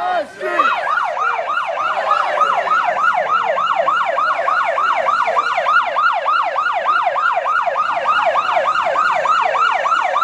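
Police siren on its rapid yelp setting, a loud pitch sweep repeating about four times a second, cutting off suddenly at the very end.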